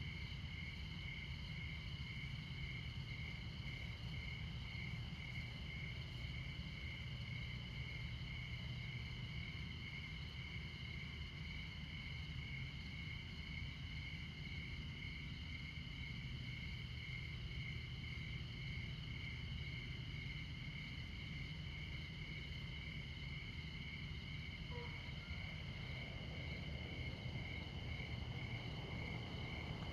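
Crickets chirping on and on in a regular pulsing rhythm over the low, constant rumble of distant interstate traffic; near the end a vehicle on the highway grows louder as it approaches.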